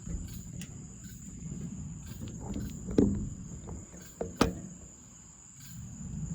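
Crickets trilling steadily at night, a continuous high chirring. Two sharp knocks about three and four and a half seconds in are the loudest sounds.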